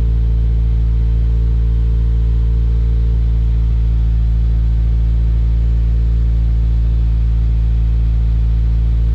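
2016 Subaru WRX's turbocharged flat-four idling steadily through a freshly installed Cobb titanium cat-back exhaust, with a low, even exhaust note.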